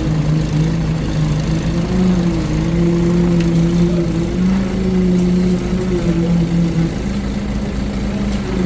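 Engine running steadily at a fairly constant speed, its pitch wavering a little and dipping briefly near the end.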